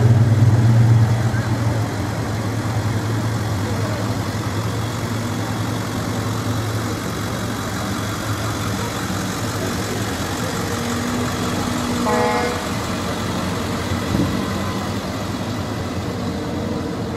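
Steady running noise of a motor vehicle, with a low hum at first and a brief pitched tone about twelve seconds in.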